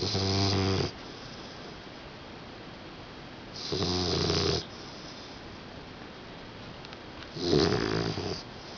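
A four-month-old English bulldog puppy snoring: three pitched snores, each about a second long, coming roughly every three and a half seconds.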